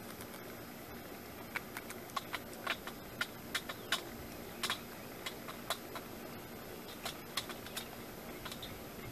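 Crows pecking peanuts and dry cat food from a shallow metal pan: a string of irregular sharp taps of beaks on the pan and the food.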